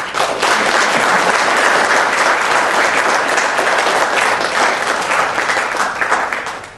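Audience applauding, a dense clapping that holds steady and then tails off near the end.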